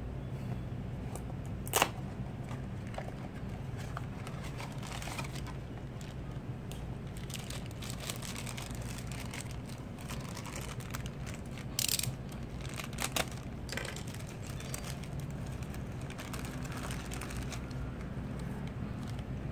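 A Funko Mystery Minis cardboard blind box is opened and its foil bag crinkled and torn open by hand: scattered crackles and rustles, with a sharp snap about two seconds in and a louder rustle near twelve seconds, over a steady low hum.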